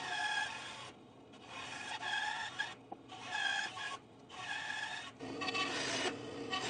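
Bandsaw blade cutting through a wooden block, trimming off its corners in a run of short cuts, each a second or so long with brief pauses between.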